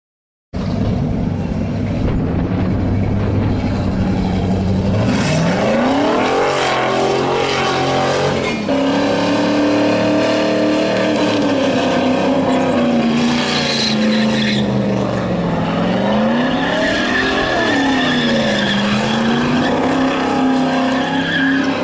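Holden Commodore V8 engine revving hard through a burnout, its rear tyres spinning and screeching amid the smoke. The sound cuts in abruptly about half a second in, holds steady revs at first, then climbs about five seconds in and keeps rising and falling as the car circles.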